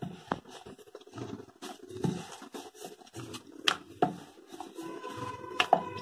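Wooden rolling pin rolling out a stacked, oiled and floured sheet of maida dough on a wooden rolling board: a repeated rubbing rumble with each stroke, and a few sharp clicks as the pin knocks the board.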